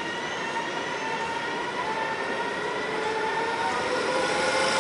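NSB electric passenger train moving along the platform and picking up speed, its traction motors whining in several tones that rise slowly in pitch over the rumble of the wheels.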